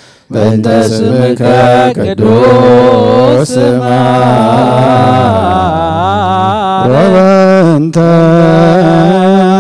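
Ethiopian Orthodox liturgical chant: a male voice chants a prayer of absolution for the dead in long, wavering, melismatic held notes. It starts after a brief break and runs on with short breaths between phrases.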